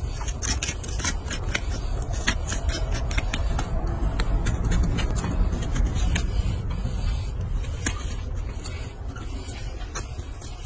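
Hoof knife paring a small horse's hoof: a string of short, irregular scraping cuts and clicks as the blade shaves the horn, over a steady low rumble.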